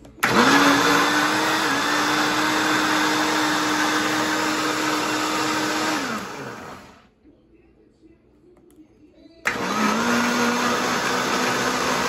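Mondial L-900W Turbo blender motor spinning water in its jar. It runs steadily for about six seconds, winds down and stops, then starts again about three seconds later at a lower pitch. The owner judges this unit defective.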